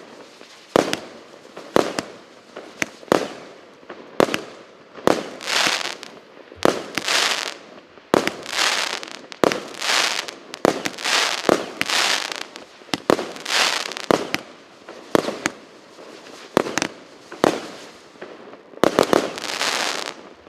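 A multi-shot fireworks battery (cake) firing shot after shot, about one a second: each a sharp pop followed by a crackling burst, with a last burst near the end.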